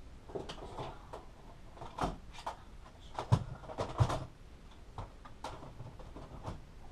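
Irregular rustling and scraping with scattered dull knocks, and two louder thumps about three-quarters of a second apart near the middle.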